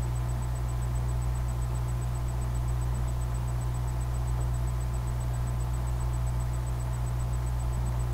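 Steady low hum with an even hiss over it, unchanging throughout, and a faint, fast, high ticking.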